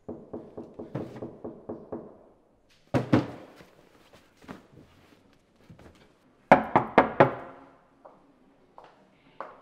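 A quick run of about a dozen sharp knocks, roughly six a second, then one loud knock about three seconds in and four loud knocks in quick succession near the end.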